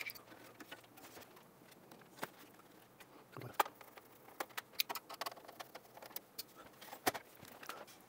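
Faint, irregular clicks, small knocks and scrapes of a screwdriver backing out screws on a steel PC tower case and the case panels being handled.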